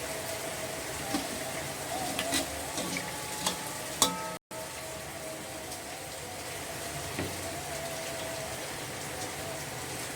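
Food sizzling steadily in a frying pan, with a few sharp clinks of a utensil against the pan in the first half. The sound cuts out for an instant about halfway through.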